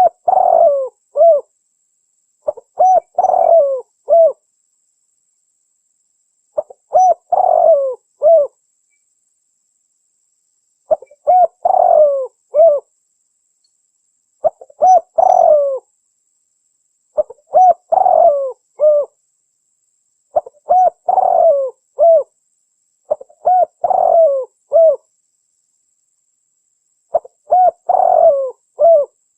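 Spotted dove cooing: a phrase of several short, rounded coo notes, repeated about nine times with silent gaps of a second or two between phrases.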